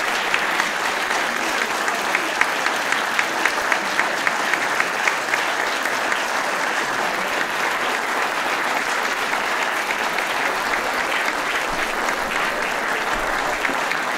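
Audience applauding steadily, with a run of louder, sharper individual claps standing out over the first five seconds.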